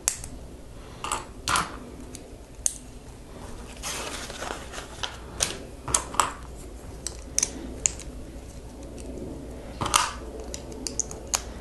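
Lego bricks being handled and snapped together: scattered small, sharp plastic clicks, with a brief rustle about four seconds in.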